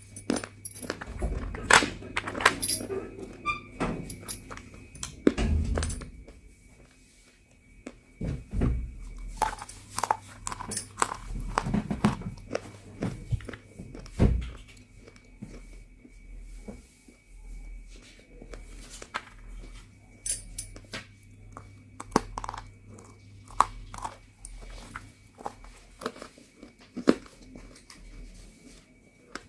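Biting and chewing pieces of home-roasted multani mitti (fuller's earth clay): a run of sharp, irregular crunches, dense in the first half and sparser later.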